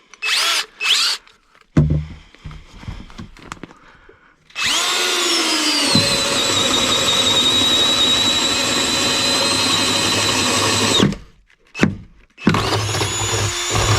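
Power drill boring a 1-inch hole through a wooden joist. It runs steadily for about six seconds, its pitch sagging as the bit bites in, stops, then runs again briefly near the end. A few knocks come before the first run.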